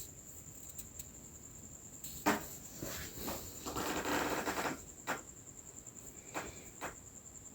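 Small clicks and a scraping rattle from wires and contactor terminals being handled and connected, with a faint steady high-pitched whine underneath.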